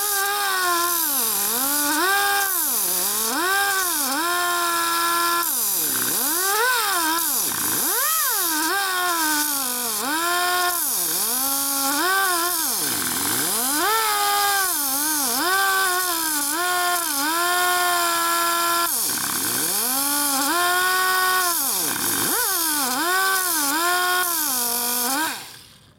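Air die grinder with a small abrasive disc grinding the tooth edges of a Harley four-speed transmission gear to give them a radius. Its high whine dips in pitch each time the disc is pressed onto a tooth and recovers between passes, many times over, then stops shortly before the end.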